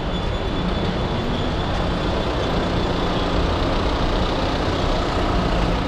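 Steady city street traffic noise, dense and low-heavy. A faint thin high whine runs through roughly the first half.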